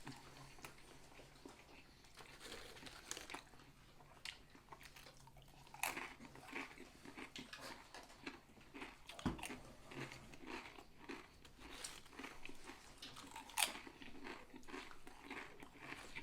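Close-miked chewing and biting of food, a steady run of wet crackling mouth sounds with a few sharper, louder crunches about six, nine and thirteen and a half seconds in.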